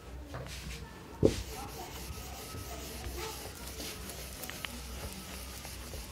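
Whiteboard being wiped clean of marker drawing: a soft, steady rubbing, with a single thump a little over a second in.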